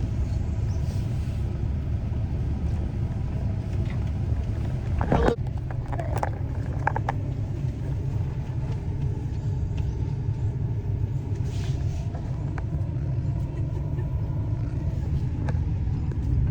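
Steady low rumble of a car being driven, heard from inside the vehicle, with a single knock about five seconds in.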